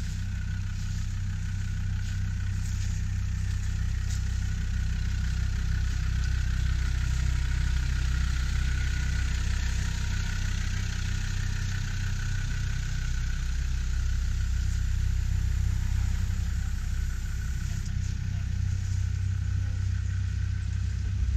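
Off-road 4x4's engine running steadily at low revs, without revving.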